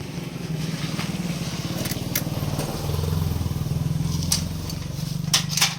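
A motorcycle-type engine running steadily, swelling for a second or so midway. A few sharp metallic clicks come from a bicycle chain being handled and fitted, most of them near the end.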